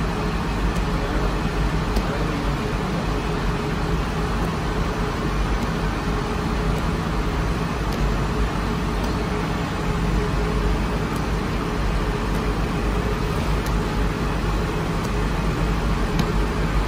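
Steady mechanical rumble and hum of bakery machinery running without a break.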